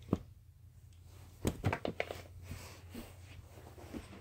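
A few dull knocks and taps as a plastic toy wand is hit against a plush pillow, with a quick run of three about a second and a half in, over handling rustle and a low steady hum.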